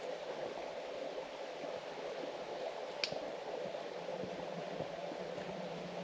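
Steady rush of flowing water from a stream or waterfall, with a single sharp click about three seconds in.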